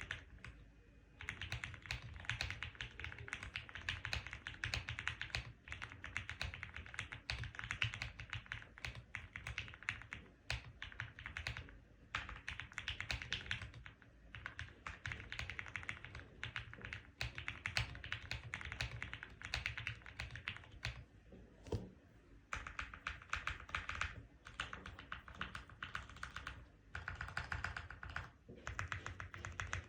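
Fast typing on a custom mechanical keyboard: lubed Gateron Yellow linear switches under PBT Cherry-profile keycaps on an FR4 plate, giving quick runs of deep clicks. The runs break off in short pauses now and then.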